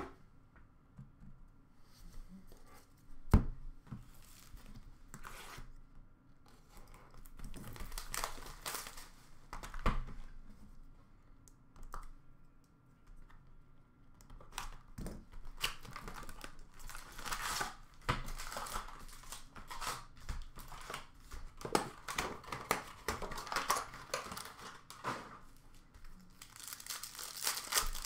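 Plastic trading-card pack wrappers being torn open and crinkled by hand, in repeated crackly stretches through the second half. A single sharp knock about three seconds in is the loudest sound.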